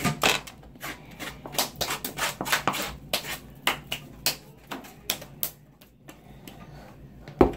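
A stick stirring fluffy slime made of glue and shaving cream in a foam cup: a fast run of short scrapes and clicks, thickest in the first three seconds or so and sparser after. A sharp knock near the end.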